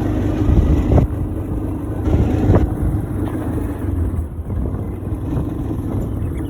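A quad bike's engine running steadily under way on a trail ride, with a few brief knocks from the ride over rough ground.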